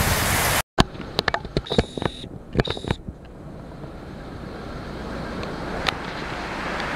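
Heavy tropical-storm rain and wind pouring down, loud at first. After a sudden break, scattered clicks and knocks and two short high tones come through, then the rush of the downpour swells gradually.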